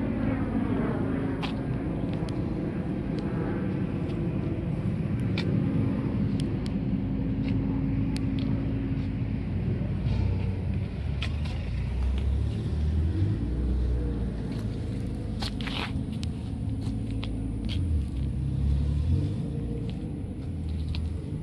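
Low, steady rumble of a car engine running, with a few short clicks scattered through.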